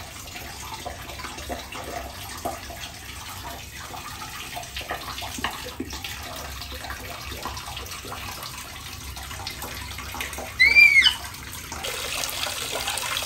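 Water splashing in a bath tub with small knocks and clatters, then, about twelve seconds in, a louder, steady rush as water starts to pour. Shortly before, a single short high squeal that rises and falls stands out as the loudest sound.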